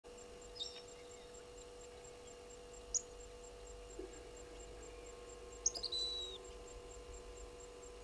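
Wild birds calling at a bushveld waterhole: a short falling call about half a second in, a sharp high note at three seconds, and a quick run of descending notes ending in a brief held whistle a little before six seconds. A steady faint electrical hum runs underneath.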